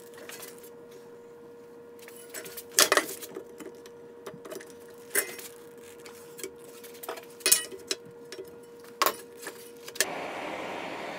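Lengths of aluminium angle knocking and clinking against each other and against a steel bench vise as they are handled into place, a few sharp knocks. About ten seconds in, a handheld gas torch lights and hisses steadily.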